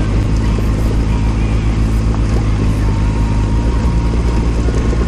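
Honda CBR600RR sport bike's inline-four engine running steadily while the bike rides along a gravel dirt track.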